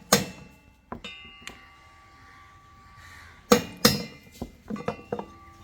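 Hammer blows on the steel drum shaft of an IFB front-loading washing machine, driving the shaft out of its jammed, worn bearing; the metal rings after the strikes. One blow at the start, a lighter knock about a second in, then two heavy blows and a few lighter knocks past the middle.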